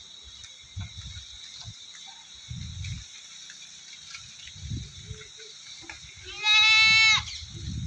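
A goat bleats once near the end, a single high call lasting just under a second. Beneath it runs a faint steady high-pitched tone, with a few soft low rumbles.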